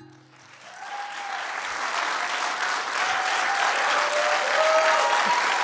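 Church congregation applauding, swelling from about half a second in as the last notes of the plucked-string music fade out.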